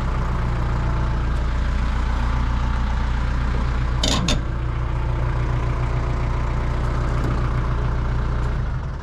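An engine running steadily at a low, even hum, with a brief hiss about four seconds in. The engine sound drops away near the end.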